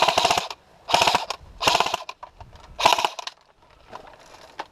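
Electric airsoft rifle fired on full auto in short bursts, a rapid clicking rattle: the first burst cuts off about half a second in and three shorter bursts follow.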